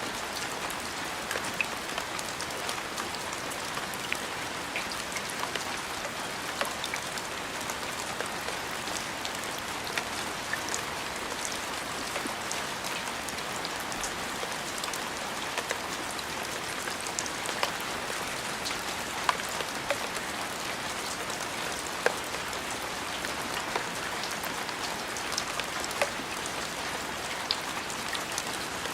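Steady rain falling on a surface, a continuous hiss with frequent sharp ticks of individual drops striking close by.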